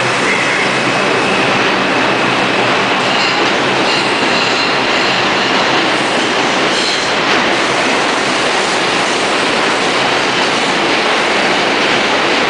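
New York City Subway train running past the platform in an underground station: a loud, steady rumble of steel wheels on rail, with a faint high squeal from the wheels in the middle part.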